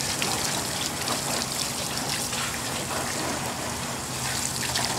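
Water spraying steadily from a garden-hose toy sprayer and spattering onto the pool and grass.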